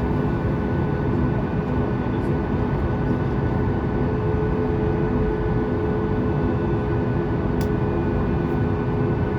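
Cabin noise of a Boeing 737 MAX-8 with its CFM LEAP-1B engines running steadily at low, even power, a constant rumble with a steady whine over it, as the jet taxis before takeoff. A single light click sounds about seven and a half seconds in.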